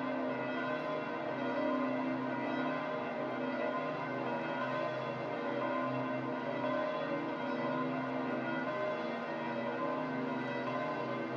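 Church bells of St Peter's Basilica pealing, many bells' tones overlapping in one continuous ringing.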